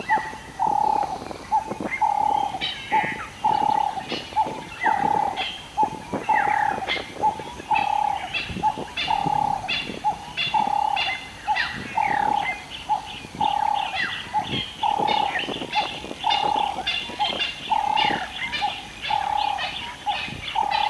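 Bush birdsong: one bird repeats a single hollow note over and over at an even pace, about three notes every two seconds, while other birds chirp and whistle around it, busier towards the end.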